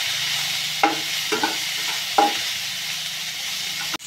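Sliced onions and tempering spices sizzling steadily in hot oil in an aluminium kadai while a spatula stirs them, scraping and knocking against the pan a few times. The sound breaks off briefly near the end.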